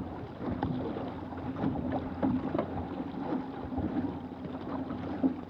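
Six-person outrigger canoe under way: paddles dig and splash in an uneven stroke rhythm, about two a second, with water rushing along the hull. A faint steady low hum runs underneath.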